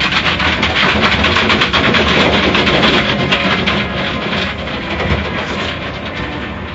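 Automatic car wash working over a car: a loud rushing noise with rapid fine pattering, of the sort water jets and brushes make. It is loudest in the first half and slowly fades.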